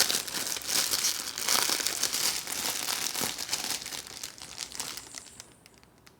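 Plastic packaging crinkling and rustling as it is handled and pulled off boxing gloves, with small crackles and a little tearing, dying away near the end.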